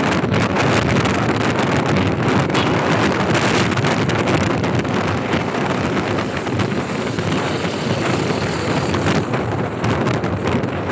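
Wind rushing over the microphone of a motorcycle riding in city traffic, a steady loud noise with the vehicle's running sound beneath it.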